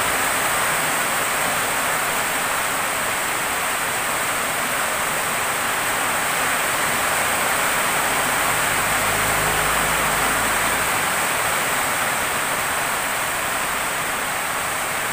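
Steady rushing hiss, like heavy rain or running water, with a low hum joining for about three seconds past the middle.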